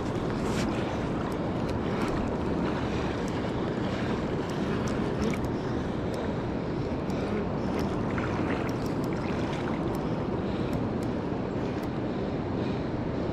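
Steady rush of river water with wind buffeting the microphone, and a few faint clicks here and there.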